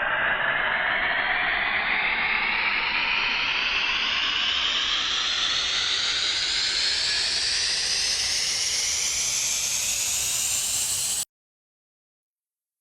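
Uplifter sound effect: a hiss of filtered noise sweeping steadily upward in pitch, with several rising bands, that cuts off suddenly about eleven seconds in.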